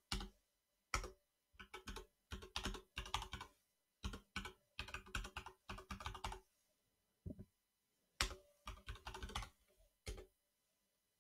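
Typing on a computer keyboard: quick runs of keystrokes broken by short pauses, fairly faint.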